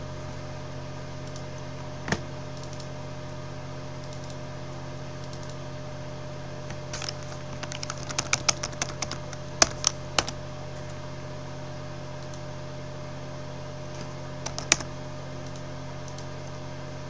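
Computer keyboard typing: a quick run of keystrokes about seven to ten seconds in, with single key clicks about two seconds in and near fifteen seconds. A steady low electrical hum lies underneath.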